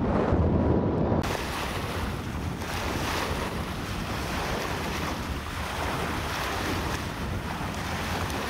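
Wind rushing and buffeting over the camera microphone while parasailing behind a tow boat; about a second in it turns into a steady, brighter hiss.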